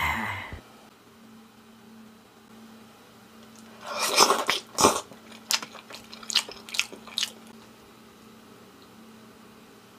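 The fading end of a burp, then a run of sharp clicks and short scrapes as chopsticks dig into a pot of noodle stew, knocking against the pot, for about three seconds in the middle.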